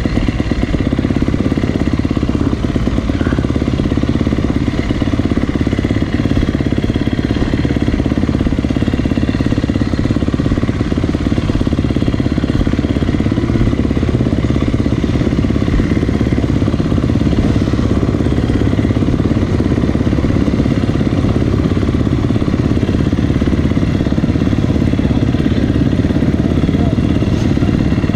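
Motocross bike's engine running steadily at low speed, heard close up.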